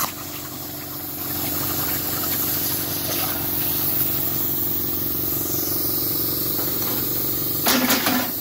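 Hypertherm Powermax 45 SYNC air plasma cutter running on the CNC table: a steady, loud hiss of the torch's air and arc over a faint hum. A brief clatter of metal comes near the end.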